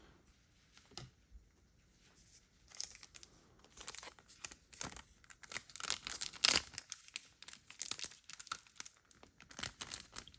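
Foil Pokémon booster-pack wrapper being torn open and crinkled, with a run of sharp crackles that starts a couple of seconds in after a quiet opening.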